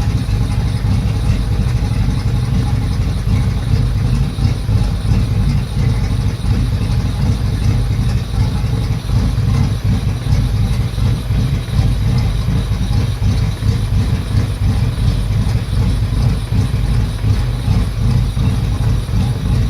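Yamaha F225 V6 four-stroke outboard motor running at a rough idle, its low running sound steady but uneven in loudness.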